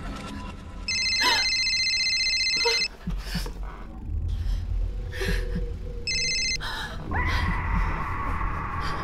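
Mobile phone ringtone: an electronic trilling ring about two seconds long, starting about a second in, then a shorter burst of the same ring around six seconds. A steady drone takes over near the end.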